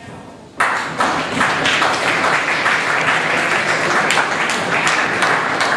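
Audience applauding in a hall, many hands clapping at once, starting suddenly about half a second in.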